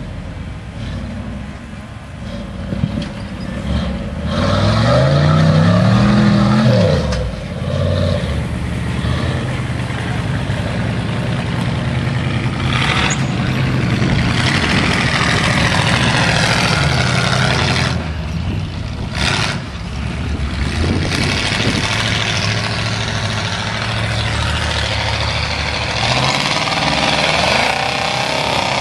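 Off-road vehicle engines revving under load as rock buggies and a lifted mini-truck climb a steep rocky dirt hill. One engine's revs climb steeply about four to seven seconds in, and the engine sound dips twice briefly near the middle.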